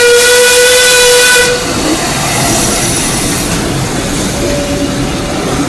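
Steam locomotive's whistle blowing one long, loud blast that cuts off about a second and a half in, followed by the locomotive and its carriages rumbling past close by.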